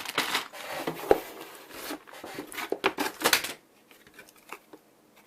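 Plastic packaging rustling while hard plastic K'NEX parts knock and click together as they are handled, for about three and a half seconds. After that only a few faint ticks remain.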